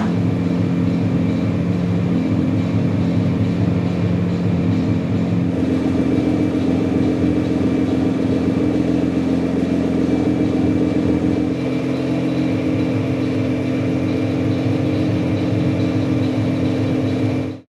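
Dodge Viper GTS's 8.0-litre V10 idling steadily with its engine note unchanging, cutting off suddenly near the end.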